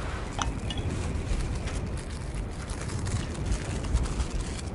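Steady outdoor ambience with a low rumble, typical of wind around a Ferris wheel gondola, and a faint short high tone about half a second in.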